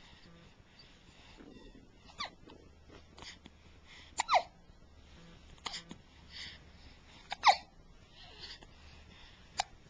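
A series of hiccups: short, sharp catches, several with a quick falling pitch, spaced a second or two apart, the loudest about four and seven and a half seconds in.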